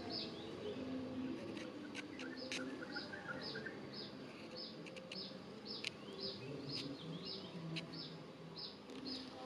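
A small bird giving the same short, high chirp over and over, about twice a second, with a few sharp clicks in between.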